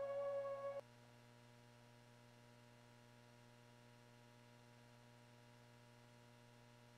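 Ambient synthesizer music with sustained tones cuts off abruptly under a second in, leaving only a faint steady low hum.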